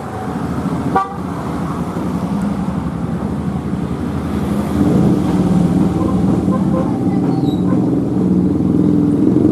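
Road traffic passing close by with engines running as the vehicles climb. There is a brief horn toot about a second in, and from about halfway a heavier engine's low rumble grows louder.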